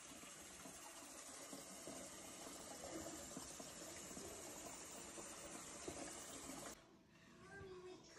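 Faint steady rushing noise with a few light knocks, cutting off suddenly about seven seconds in.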